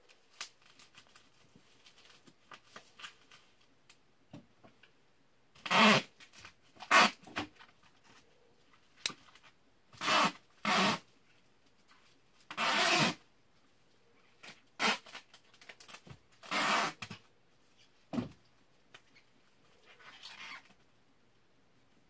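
Handling noise from a CRKT Lake 111 lockback folding knife: sharp clicks of the blade and lock back, mixed with short scraping, rasping sounds about half a second long, spread irregularly.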